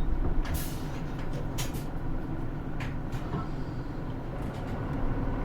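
Interior sound of a Hino Rainbow II route bus: the diesel engine and body give a steady low rumble, broken by short air hisses from the air brake system, the strongest about half a second in and smaller ones near a second and a half and about three seconds in.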